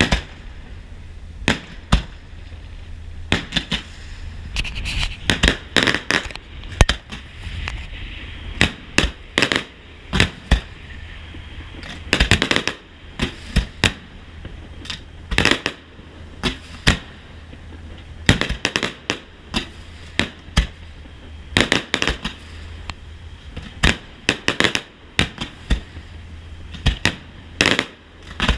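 Fireworks display: aerial shells bursting in a rapid, irregular series of bangs, some followed by a stretch of crackling.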